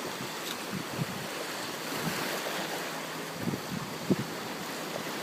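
Ocean surf washing on the shore as a steady hiss, with a few short low thumps, the loudest about four seconds in.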